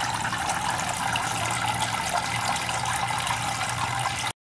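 Small water fountain running: a steady trickle of water over a low pump hum. It cuts off suddenly near the end.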